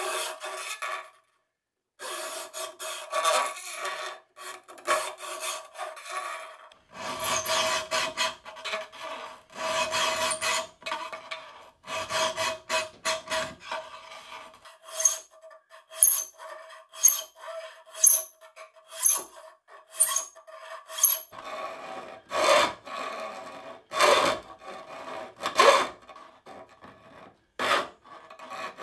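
Flat steel hand file stroking back and forth through a slot in a thin stainless steel sheet, rasping on each stroke as the blade opening is filed out. A steady ringing tone sounds under the strokes for much of the time, and through the middle the strokes come about one a second. The sound drops out briefly a couple of times.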